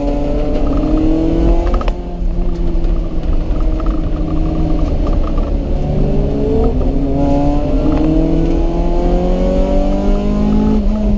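Honda CRX engine pulling hard on track, its pitch climbing. About two seconds in there is an upshift, and the pitch climbs steadily again through the second half.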